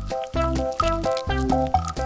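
Background music with a steady, bouncy beat: short repeated bass notes under a simple tune.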